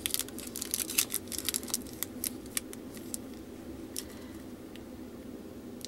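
Small plastic packet of diamond-painting drills crinkling and clicking as it is handled and turned in the fingers: a quick run of crackles for the first couple of seconds, then a few single clicks, over a steady low hum.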